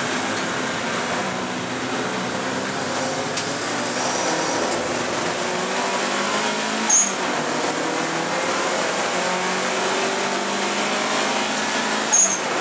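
Alfa Romeo 155 Turbo race car's engine under racing load, heard from inside the cabin. The revs climb and fall back at two upshifts, about seven seconds in and near the end. Each shift brings a short, sharp high sound.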